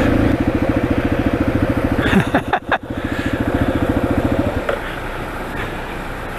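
Yamaha XT dual-sport motorcycle's single-cylinder engine running with steady, even pulses. There is a brief clattering disturbance about two seconds in, and the engine sound drops away abruptly at about four and a half seconds, leaving a quieter even noise.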